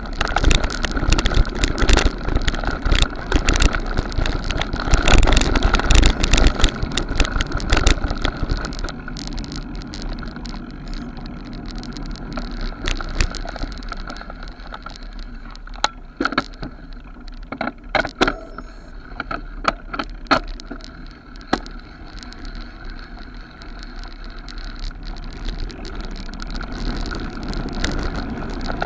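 Mountain bike running fast down a rough forest dirt trail: a continuous rumble of tyres over dirt and stones with the bike rattling. It is loudest and roughest in the first eight seconds, then eases, and a cluster of sharp clicks and knocks comes about two-thirds of the way in.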